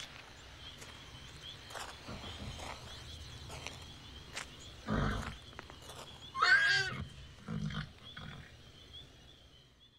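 Stabled horses snorting and one whinnying loudly about six and a half seconds in, over a steady chirping of night insects and a few faint clicks.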